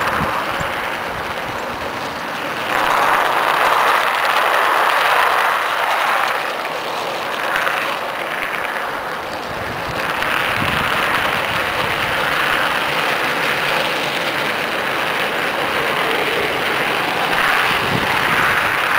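Garden-railroad model train running along its track, heard from a camera riding on it: a continuous rushing rumble of wheels on rail that swells and fades, with a few faint knocks.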